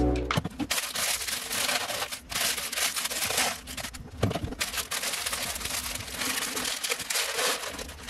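Plastic bag of dry pasta crinkling as it is handled and opened, with dry pasta poured into a plastic storage container near the end, a dense crackle dotted with small clicks.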